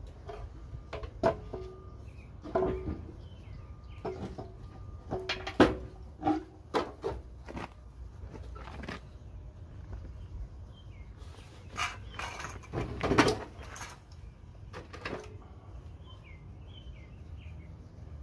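Metal clanks and knocks, several with a short ringing note, from hands and tools working on a small engine as it is unbolted and lifted off its mount, with a louder run of scraping knocks a little past the middle. Birds chirp faintly near the end.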